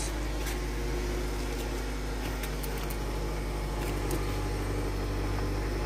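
Nissan Grand Livina's engine idling steadily, heard from inside the cabin, running once the remote alarm module's connector has been unplugged to bypass the unresponsive remote.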